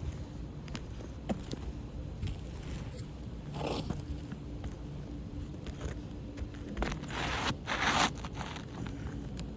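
Asphalt roof shingles being pried up and scraped: a short scrape about three and a half seconds in and a louder, longer rasping scrape near seven to eight seconds, with a few small clicks.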